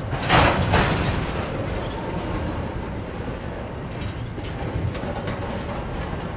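Double-stacked container wagons of a long freight train rolling past close by: a steady rumble of wheels on rail, with a brief loud burst of rattling noise about half a second in.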